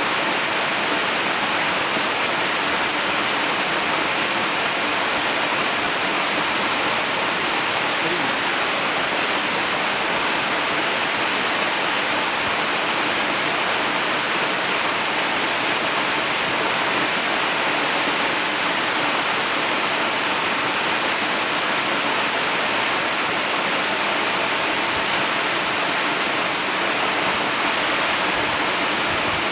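Waterfall rushing steadily: an even, bright hiss that does not rise, fall or break.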